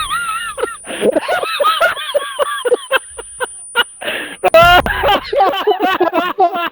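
A person laughing hard in rapid, high-pitched, breathy pulses, about four a second: a wheezing laugh. It swells into a louder, longer whoop about four and a half seconds in, then breaks back into quick pulses.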